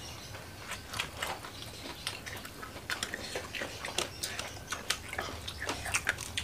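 Crispy deep-fried battered mushrooms crunching, as they are chewed up close and as the crisp batter is pulled apart by hand; many short, irregular crackles.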